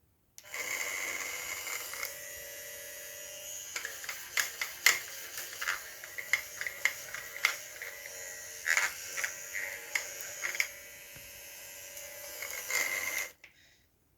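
Battery-powered sonic facial cleansing brush running with a steady buzz, and irregular clicks and knocks over it. It switches on about half a second in and off about a second before the end.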